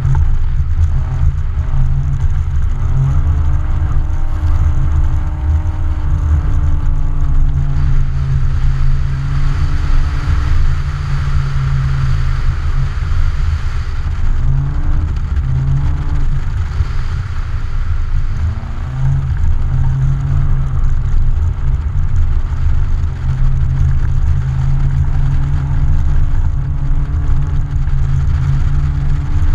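A car's engine running hard and revving, its note climbing and dropping several times as the car slides sideways across snow-covered ice, over a heavy low rumble. It is picked up by a camera mounted on the outside of the car.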